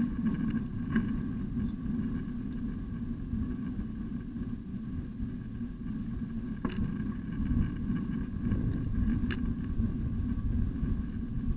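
Steady low rumble of a bicycle rolling over a paved path, heard through a bike-mounted camera, with a few short sharp clicks.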